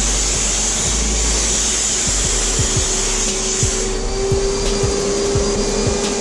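HVLP paint-spray turbine running steadily with a whine, while the spray gun hisses as it atomises coating onto the tub. The hiss stops a little past halfway as the trigger is released, leaving the turbine running on.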